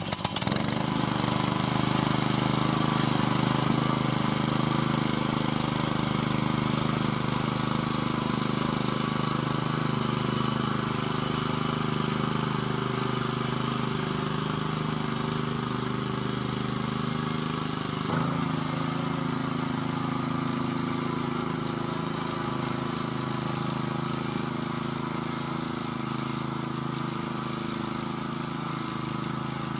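VARI two-wheel walking tractor's engine running steadily as the machine is driven along, slowly fading as it moves away. The engine note changes slightly about 18 seconds in.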